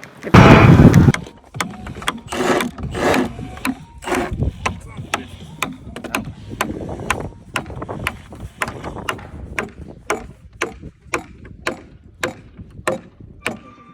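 Hand-tool work on a timber truss: a loud thump about half a second in, then a run of sharp clicks or taps that settles to about two a second.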